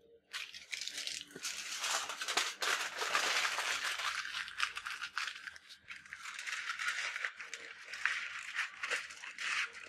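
Freshly roasted pork belly and its hot drippings sizzling and crackling in a foil-lined baking tray, a steady fine crackle with many small pops. Near the end the aluminium foil crinkles as it is handled.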